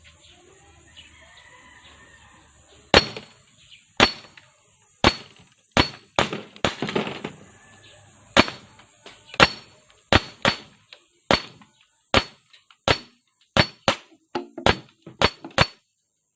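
Trex hi-capa gas blowback airsoft pistol firing about eighteen sharp shots, irregularly spaced, roughly one a second, at glass bottles, with glass cracking and clinking as BBs hit and break a bottle.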